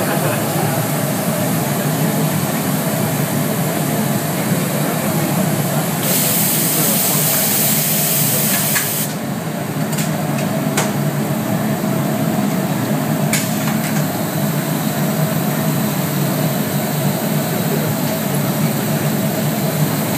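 Steady hum of a glassworks factory floor. About six seconds in, a loud hiss lasts about three seconds, and then come a few sharp knocks.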